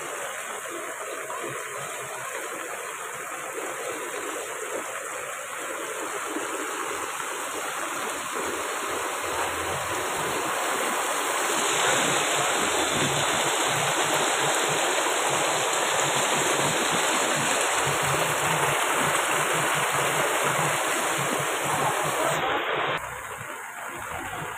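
Floodwater rushing and spilling through a waterlogged lane, a steady rush of water that grows louder about halfway through and drops off suddenly near the end.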